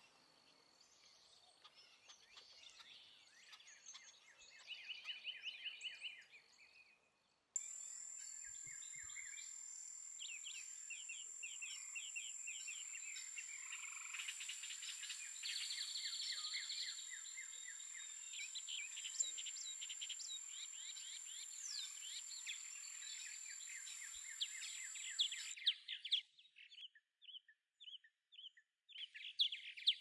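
Wild songbirds chirping and singing, several voices overlapping, with a short fast trill about five seconds in. From about seven seconds in, a steady high-pitched hum runs under a dense run of chirps and trills, then cuts off suddenly near the end, leaving a few scattered chirps.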